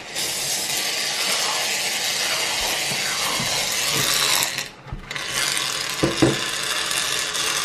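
Aerosol can of Gillette shaving foam spraying, a loud sputtering hiss held for about four and a half seconds, a short pause, then a second long spray.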